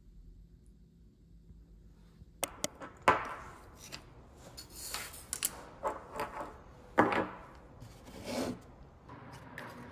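Near silence for about two seconds, then small objects being handled on a hard worktable: a wooden craft stick and small glass jars. A few sharp clicks and knocks, then repeated scraping and rubbing, with loud knocks about three and seven seconds in.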